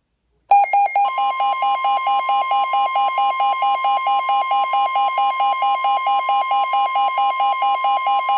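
Emergency alert attention signal: a loud electronic beep pulsing rapidly, about five times a second, starting half a second in, with a steady high tone joining it about a second in.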